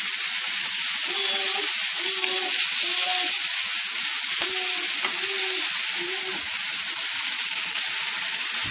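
Thin seasoned ribeye slices sizzling steadily on a hot cast-iron grill pan, with tongs turning the meat.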